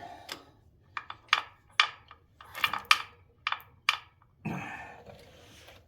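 Hand ratchet tightening the compensator bolt on a Harley-Davidson Street Glide Special, heard as a series of separate sharp clicks and clacks, a few at a time, through the first four seconds. This is followed by a brief rush of noise.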